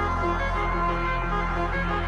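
Drum and bass track playing in a DJ mix: heavy sustained sub-bass under a repeating synth pattern, with no MC vocals.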